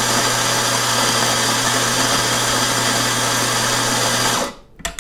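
Eureka Zenith 65E espresso grinder, with its 65 mm flat steel burrs and 510 W motor, grinding an espresso dose into a portafilter: a loud, steady motor hum and grinding whirr that stops about four and a half seconds in. A few sharp clicks follow just after it stops.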